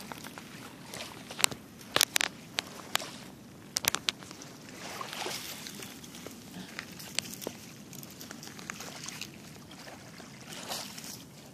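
Small waves lapping at a gravel river shore, a soft steady wash that swells now and then. A cluster of sharp clicks and crunches on the gravel comes about one to four seconds in, with a few single clicks later.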